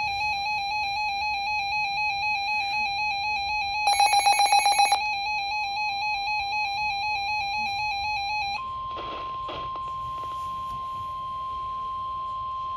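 A weather alert radio sounds its warbling electronic alarm, briefly louder and rapidly pulsing about four seconds in. After about eight and a half seconds the alarm stops and leaves the steady single-pitch NOAA Weather Radio 1050 Hz warning tone. Together they announce an incoming severe thunderstorm warning.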